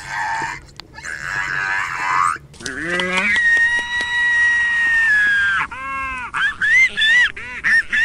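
Reconstructed Velociraptor calls: raspy hissing cries, then a rising call that settles into one long, steady high-pitched call of about three seconds, followed by a string of short rising-and-falling chirps.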